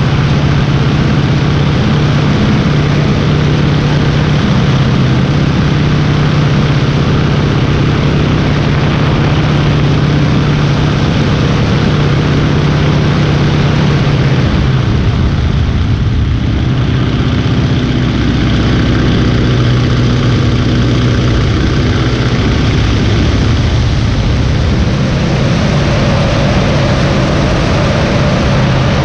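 Stearman biplane's radial engine and propeller in flight, a steady drone with wind rushing over the microphone. The engine note changes about halfway through as the plane manoeuvres.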